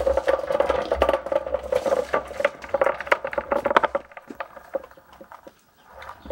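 Casters of a small wooden plant dolly, loaded with a heavy potted ficus, rolling over rough concrete paving: a steady hum with a dense rattle of clicks. The rolling stops about four seconds in, leaving a few light knocks.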